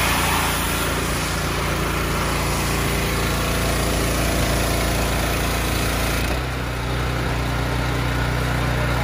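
Gas-engine pressure washer running steadily, its high-pressure spray hissing against aluminum crate grills. About six seconds in the spray hiss stops and the engine's hum changes.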